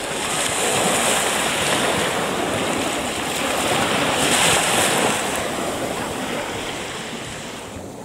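Sea surf breaking and washing up a sandy beach, swelling twice, loudest about halfway through, then slowly fading.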